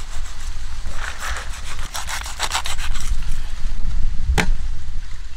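A large knife sawing through the base of a giant trevally's pectoral fin in a run of rasping strokes, with one sharp click about four seconds in.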